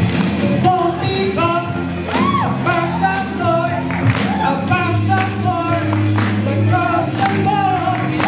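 A song playing loudly, with a lead voice singing held, gliding notes over a band backing.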